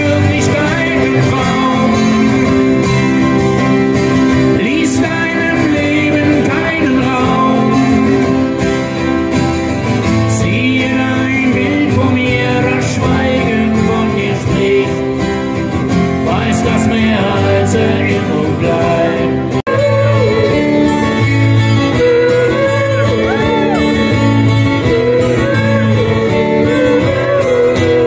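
Live acoustic set: strummed acoustic guitars with a singing voice over a PA system. About two-thirds of the way through the music cuts abruptly to another passage of guitar and singing.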